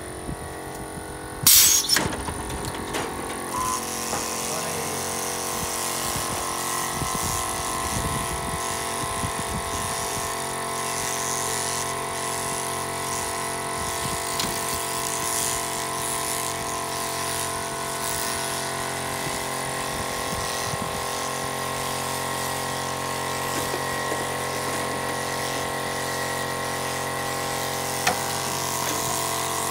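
Sheep-shearing handpiece, driven by an overhead shearing motor, running steadily while cutting a ram's fleece. There is one loud clack about a second and a half in.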